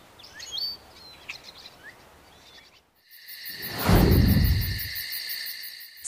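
Faint bird chirps over quiet outdoor background. About halfway through, this switches suddenly to a cicada's loud, steady, high-pitched buzz with a rapid pulse. Just after the switch, a deep whoosh swells and fades away; it is the loudest sound.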